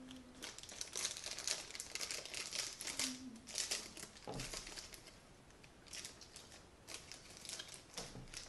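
Clear plastic candy bags crinkling as they are handled, in irregular bursts, with a quieter stretch around the middle.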